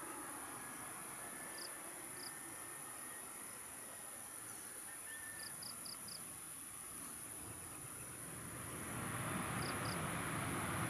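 Distant airliner on its landing roll, a low rumbling that swells about nine seconds in. Over it runs a steady high-pitched hiss, broken by a few short chirps.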